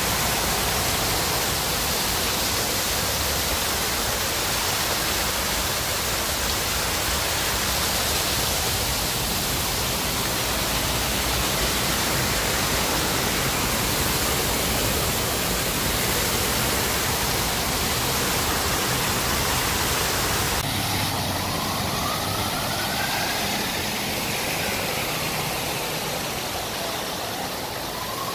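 Water cascading down a fountain's wall into a foaming basin, a steady rush. About three-quarters of the way through it cuts off abruptly to quieter city traffic, with a whine that rises and falls in pitch.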